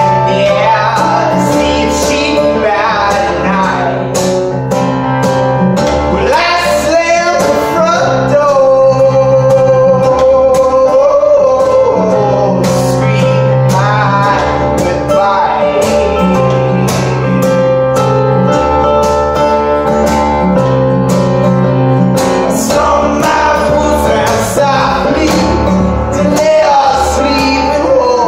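Live acoustic music: a man singing while strumming an acoustic guitar, with a keyboard playing chords and held low bass notes that change every second or so.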